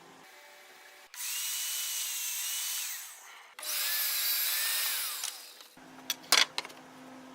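Table saw cutting plywood in two short runs, each with a high whine that falls away at its end.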